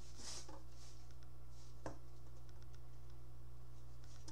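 Steady low electrical hum, with a few faint ticks and rustles of cardboard packaging being handled and one slightly clearer click about two seconds in.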